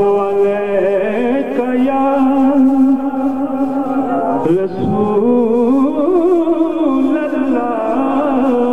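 A solo male voice singing a naat (Urdu devotional poem in praise of the Prophet), holding long sustained notes. A short break comes about four and a half seconds in, then a wavering, ornamented phrase follows.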